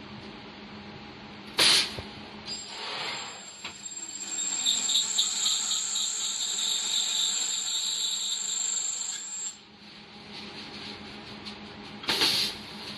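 Double-head ultrasonic plastic welding machine at work on plastic thatch strips. A short loud rush of noise comes about one and a half seconds in, then a steady high-pitched whine with a rapid pulsing under it lasts about seven seconds, and another short rush of noise comes near the end, all over a low steady hum.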